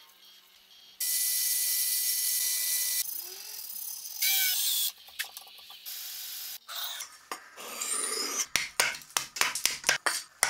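A meat cleaver chopping into a wooden block: a quick run of about a dozen sharp strikes in the last two seconds. Before it come shorter workshop sounds: a steady machine whir for about two seconds, then scrapes and hand sanding on the cleaver's wooden handle.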